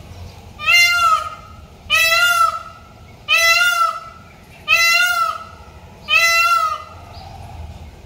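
Indian peafowl calling: five loud calls in a steady series, each about half a second long, coming about once every second and a half.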